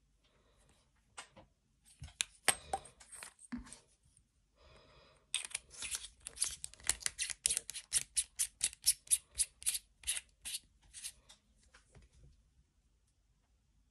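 Metal threads of a flashlight-style laser pointer's body being screwed together by hand: a fast run of scratchy rasps, about four a second, for several seconds, after a few handling clicks and knocks as the battery goes into the tube.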